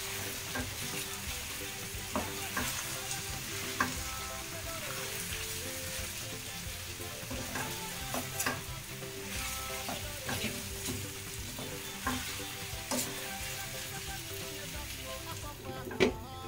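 Chicken pieces and onions sizzling in oil in a frying pan while a wooden spoon stirs and turns them, scraping and knocking against the pan. Near the end a glass lid is set on the pan with a clack and the sizzle becomes muffled.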